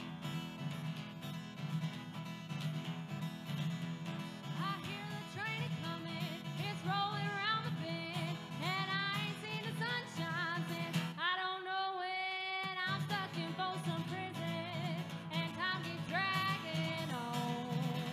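Background music: a song with guitar accompaniment and a singer. The voice comes in about four seconds in, and the backing drops out briefly under one long held note a little past the middle.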